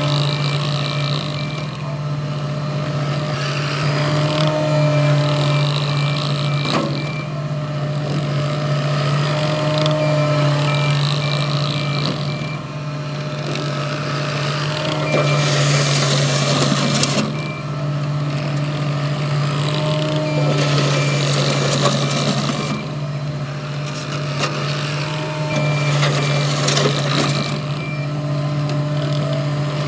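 CAT 259D compact track loader's diesel engine running steadily as the machine travels and pushes gravel, with the tracks and bucket scraping through the stones in surges. A reversing alarm beeps at times.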